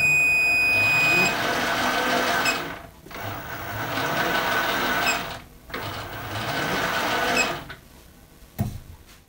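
SIEG SC4 mini lathe's headstock gearbox running, a busy whirring gear noise. It comes in three spells with short dips between them and fades near the end. A steady high tone sounds over the first second or so.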